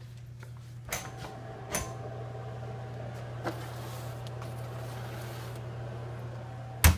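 Convection oven's fan humming steadily with the door open while a plate of resin parts is slid onto the wire rack, with a few light clicks and clatters. A loud sharp bang near the end as the oven door shuts.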